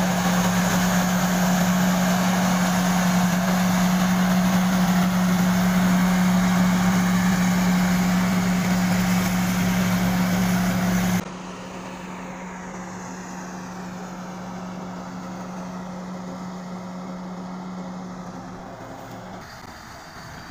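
Rice combine harvester's engine running steadily under load while it harvests, a loud, even drone. About eleven seconds in it cuts off abruptly to a much fainter, distant engine hum that fades out near the end.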